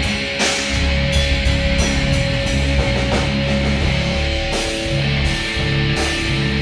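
Rock band jamming heavy, metal-style music: distorted electric guitar and bass holding low notes over a drum kit, with a cymbal crash about half a second in and steady cymbal strokes in the second half.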